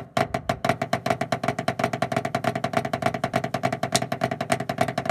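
Drumsticks on a home-made practice pad playing Swiss Army triplets, right-hand flams each followed by two taps, in a fast, even stream of strokes. Each stroke has the same ringing, woody note.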